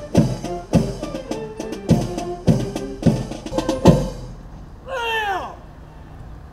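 Ceremonial band music with sustained notes and heavy drum strikes, ending on a final drum stroke about four seconds in. A short falling call follows about a second later.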